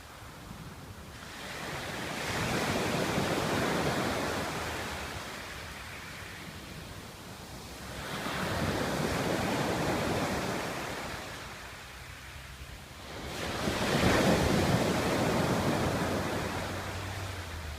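Mediterranean waves breaking on a pebble beach, three in turn, each swelling to a rush and then draining away; the third, near the end, is the loudest.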